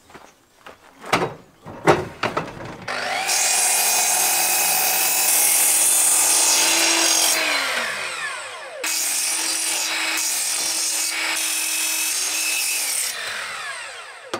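A few knocks as a wooden beam is set down on the saw, then an electric mitre saw runs twice, each time spinning up, cutting into the timber and winding down with a falling whine. The cuts are kerfs for a notch in the beam.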